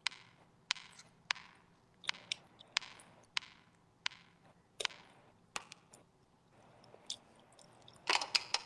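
Irregular sharp clicks or taps close to the microphone, one every half second or so, with a quick run of several near the end.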